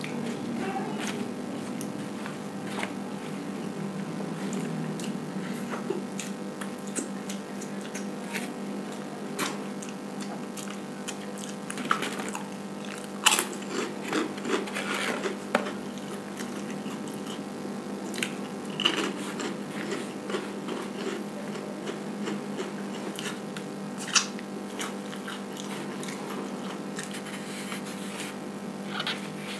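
A person eating rice with his fingers from a paper wrapping: chewing with scattered sharp crunches, louder and more frequent about halfway through, over a steady low hum.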